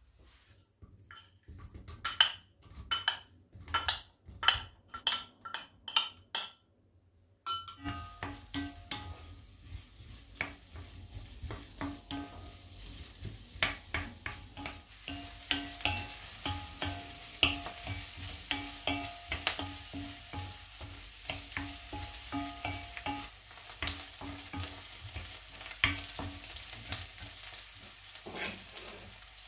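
A run of sharp, ringing taps, about two a second, then sliced onions hitting hot peanut oil in an enamelled cast-iron pot about a quarter of the way in and sizzling steadily, with clicks and scrapes as a wooden spoon stirs them.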